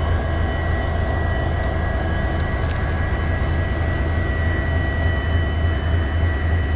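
Indian Railways WDG4 diesel locomotive's 16-cylinder two-stroke EMD engine running steadily at standstill: a loud, even low rumble with a steady high-pitched whirr over it.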